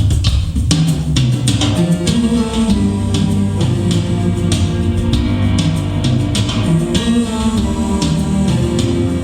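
Rock music with a drum kit, bass and guitar, played through Nubert nuLine 334 hi-fi loudspeakers; steady drum hits throughout, with bass and guitar notes filling in after about two seconds.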